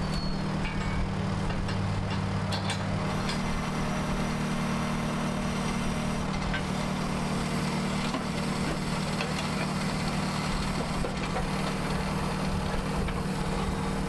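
Diesel engine of heavy equipment idling steadily, with a few faint clinks of metal.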